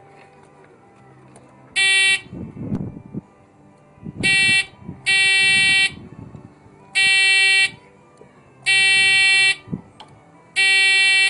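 Electric horn of a mobility scooter, pressed in six short honks in a row. Each honk is a steady beep of about half a second to a second, with irregular gaps between them.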